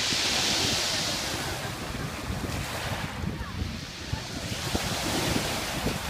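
Small waves breaking and washing up a pebble beach, with two surges of hiss, the second about four and a half seconds after the first. Wind buffets the microphone.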